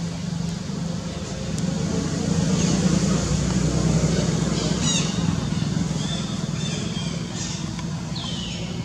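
A motor vehicle's engine hums low and steady, swelling about two seconds in and fading toward the end as it passes. Over it, a quick run of high chirps comes about halfway through and two short falling squeaks near the end.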